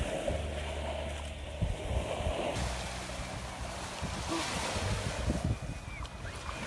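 Small waves washing onto a sandy shore, with wind rumbling on the microphone.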